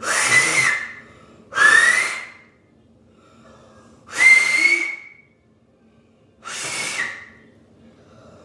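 Two-finger whistle blown four times, each blast lasting under a second: a rush of breath carrying a thin, high whistle tone that slides up briefly and then holds.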